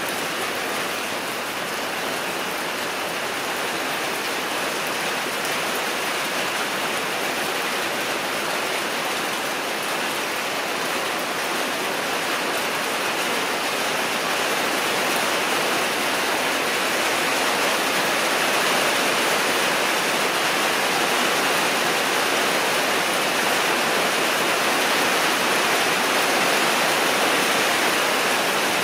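Steady rushing water noise, a little louder in the second half.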